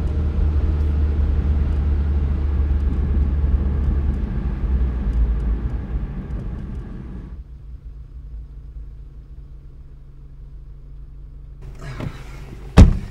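Car cabin sound as the car drives, a loud low rumble of engine and road, which drops about seven seconds in to a quiet steady idle hum as the car stops. Near the end come a couple of sharp knocks, the loudest a single thump of a car door shutting.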